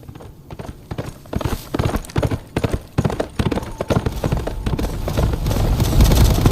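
Horse hooves at a gallop, a quick irregular run of hoofbeats that grows louder, with a low rumble building near the end.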